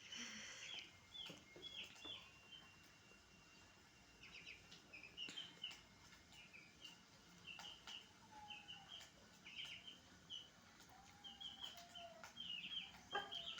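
Baby chicks peeping: a faint, continual run of short, high chirps, several a second, with now and then a lower, longer note.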